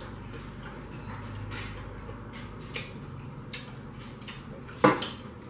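Quiet eating sounds from people at a table: a few faint clicks from chewing and handling food, and one sharp knock near the end.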